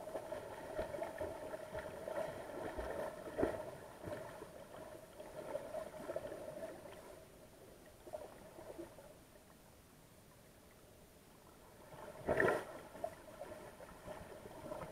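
Muffled underwater sound picked up by a camera in a waterproof housing: a wavering hum that fades after about seven seconds, and a short loud rush of water about twelve seconds in.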